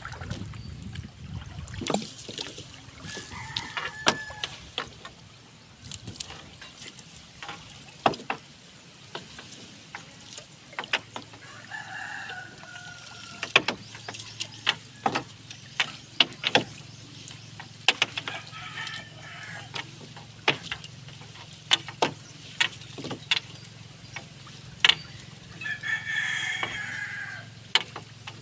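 Rooster crowing repeatedly, a long call every several seconds, over frequent sharp knocks and clatters from a fishing net being pulled and handled in an outrigger boat.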